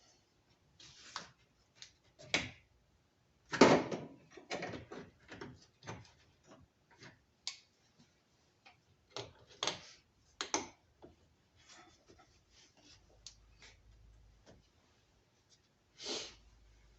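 Irregular clicks, knocks and short scrapes of hand tools and parts being handled during work on a car's radiator hoses, the loudest a rasping scrape about four seconds in.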